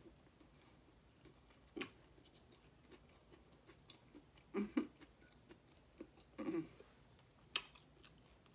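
Faint close-up eating sounds from a person chewing food: a few separate mouth smacks and clicks, spaced a second or two apart.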